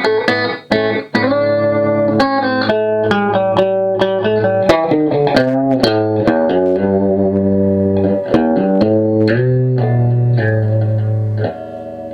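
Electric guitar (Squier Telecaster on its bridge pickup) played through a 1973 Marshall 2061 Lead and Bass 20 valve amp: a lead line of picked single notes with string bends and longer held notes, dropping off shortly before the end.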